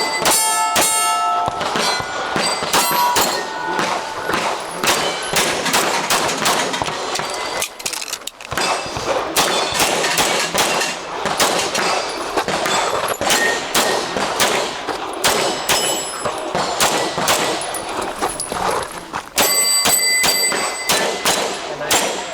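Competition pistol fired in rapid strings at a stage of steel targets, each hit answered by a ringing clang of the steel plate. There is a short pause about eight seconds in, then the shots resume, with the steel ringing strongly near the end.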